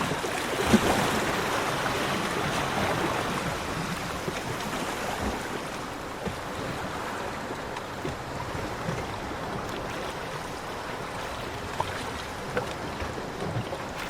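Ocean waves breaking on a beach: a wave surges in about a second in, then the wash slowly dies away.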